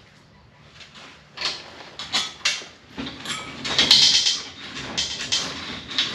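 Hand-cranked chain-and-sprocket cable lift on a homemade band saw mill being turned: metal clanking and scraping, starting about a second and a half in as irregular knocks and becoming a louder, near-continuous grind with a high edge from about three seconds in. The lift still moves a little sticky.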